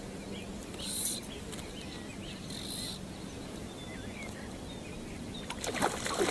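Quiet open-water ambience: a low rumble of wind with small birds chirping in the distance. Two brief hissing rushes come about a second and near three seconds in.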